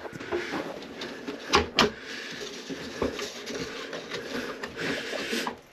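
Hands handling the plastic cover of a ceiling bathroom exhaust fan, with scattered clicks and two sharp knocks in quick succession about a second and a half in.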